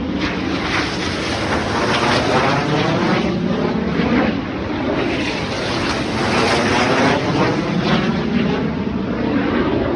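Snowbirds' Canadair CT-114 Tutor jets flying low overhead in formation: a loud, steady jet roar with a sweeping, phasing whoosh as they pass, fading off near the end.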